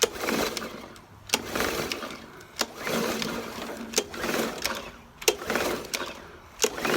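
Recoil pull-starter on a brand-new Hyper Tough push mower's four-stroke engine, yanked about six times in a row, roughly one pull every second and a half. Each pull is a sharp click followed by a whirring rush as the engine turns over without catching.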